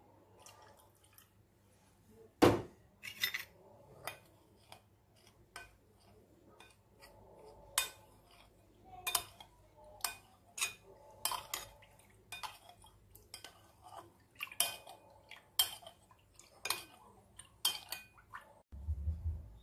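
Metal spoon clinking against a glass bowl while stirring egg yolks, water and milk together, in irregular clinks about one or two a second. A louder knock comes about two and a half seconds in.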